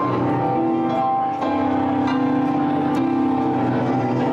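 Electronic keyboard played live: both hands playing a run of sustained chords and notes that change every half second to a second.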